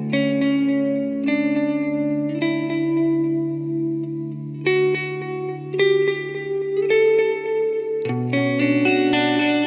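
Instrumental music: an electric guitar through effects picks a slow line of ringing notes, a new note about once a second, over a held low note that shifts about eight seconds in.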